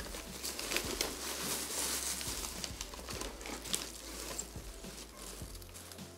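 Crumpled packing paper rustling and crinkling as hands dig through it in a cardboard box, with many small sharp crackles.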